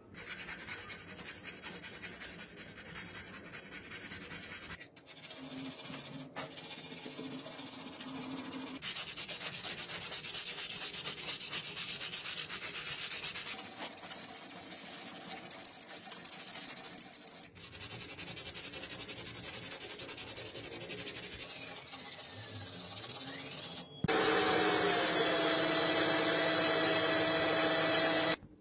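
Hand sanding and filing of a wooden revolver grip panel, scratchy strokes in several short cut-together takes. In the last four seconds this gives way to a louder electric drill with a steady whine, boring a hole through the wooden grip.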